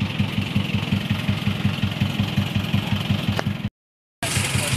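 Motor vehicle engine idling with a steady low pulsing. The sound cuts out completely for about half a second near the end, then the same idling carries on.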